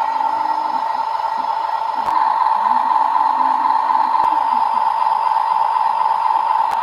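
Small electric motor and gearbox of a radio-controlled toy vehicle running steadily with a high whine. It gets louder about two seconds in, with a couple of short clicks.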